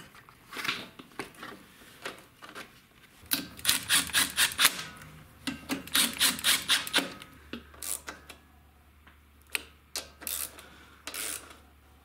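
Hands fitting the primer line and a rubber hose onto a push mower's plastic air filter housing: plastic clicks, taps and rubbing, with two runs of quick rattling clicks about three and six seconds in.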